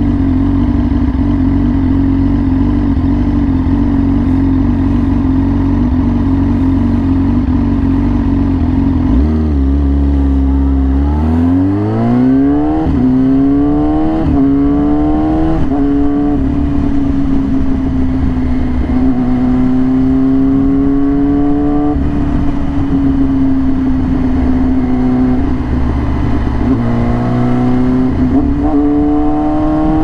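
Yamaha R6 inline-four through an SC Project exhaust, holding steady revs at first. About nine seconds in the revs drop, then climb hard through three quick gear changes, and the engine settles into a steady cruise. Near the end it pulls up through more quick gear changes.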